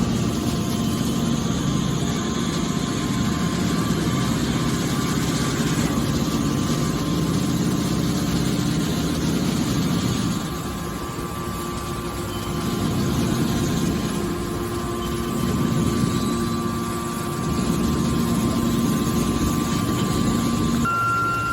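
Hydraulic scrap metal baler running: a steady, loud hum from its hydraulic pump and motor with a faint whine, easing off twice and coming back up.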